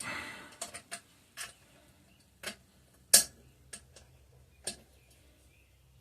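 Sharp metal clicks and clinks of a 3/8-inch drive socket wrench being fitted and worked on an engine's exhaust bolts, about seven separate clicks spread out, the loudest a little after three seconds in.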